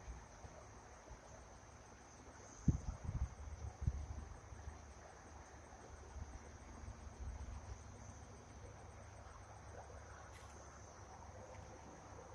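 Night-time insect chorus: a steady high-pitched drone with a fine, regular pulsing above it. A cluster of low thumps and rumbles comes about three to four seconds in.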